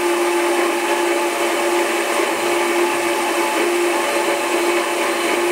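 Belt grinder running at a steady speed while a small steel scabbard fitting is ground against its small-wheel attachment: a constant motor tone under an even grinding hiss.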